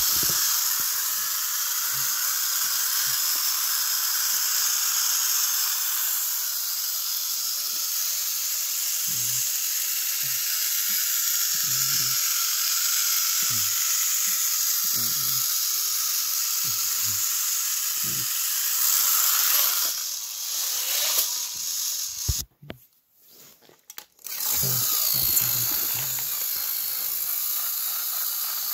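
Battery-powered Thomas & Friends toy engines running on plastic track: a steady high whirring hiss with scattered soft knocks. It cuts out for about two seconds roughly three-quarters of the way through, then starts again.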